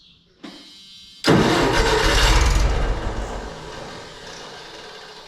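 Wisconsin V465D air-cooled V4 engine being cranked, then firing with a sudden loud burst about a second in and running briefly before dying away. It catches once but won't keep running.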